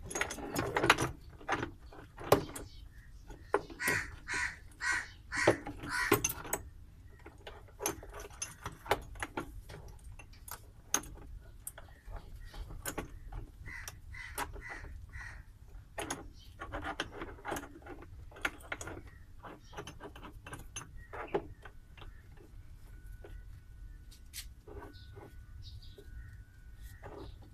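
Metal tools clicking, clinking and knocking on the parts of a washing machine as its drum is taken apart. A run of about six harsh, evenly spaced squawks comes a few seconds in, and a shorter run comes midway.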